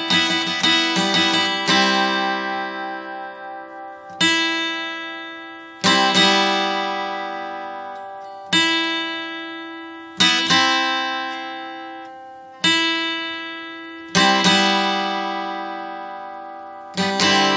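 Acoustic guitar improvising: a quick run of picked notes, then chords struck about every two seconds and left to ring out slowly.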